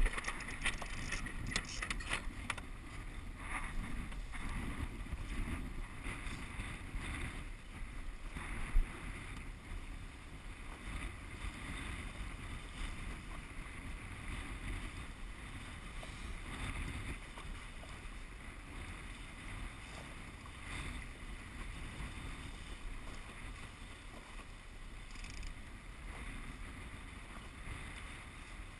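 Water splashing and rushing along the hull of a Walker Bay 10 sailing dinghy under way. The splashing is choppiest in the first few seconds, then settles to a steadier wash, with a single sharp knock about nine seconds in.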